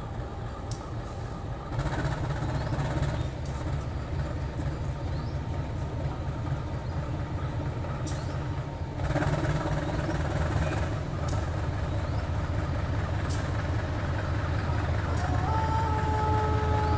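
KAI diesel-electric locomotive pulling a local passenger train away from the station. Its engine rumbles low and steps up in loudness twice, about two and nine seconds in, as it notches up. A steady pitched tone joins near the end.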